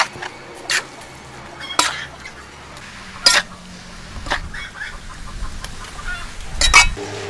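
Metal spatula knocking and scraping against a large aluminium pan as stir-fried noodles are tossed: a handful of sharp knocks a second or so apart, the loudest a quick double knock near the end.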